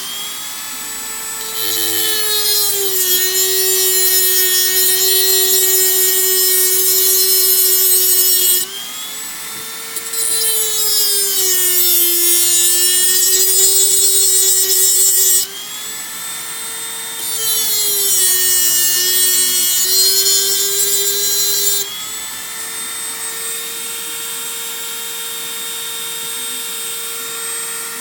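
Dremel rotary tool cutting through the tabs joining the cells of a lithium-ion battery pack. There are three stretches of high-pitched grinding, and during each the motor's whine sags in pitch under load. Near the end the tool spins freely at a steady, higher whine.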